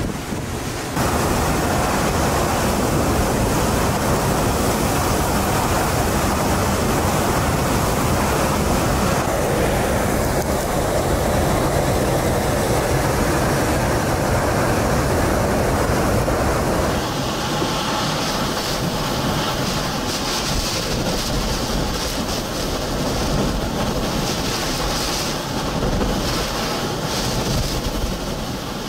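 Hurricane-force eyewall wind blowing hard with driving rain, buffeting the microphone. It gets louder about a second in, and a little past halfway turns thinner and hissier with less low rumble.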